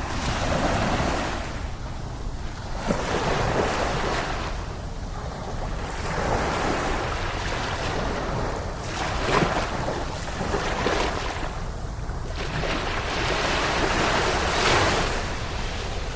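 Sea waves breaking and washing up the beach, the surf swelling and falling back every few seconds, over a steady low rumble of wind on the microphone.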